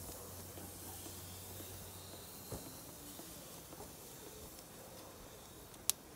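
Faint steady hiss from the lit burners of a gas grill, with a soft knock about two and a half seconds in and one sharp click near the end as the chicken on its can is set down on the grill grate.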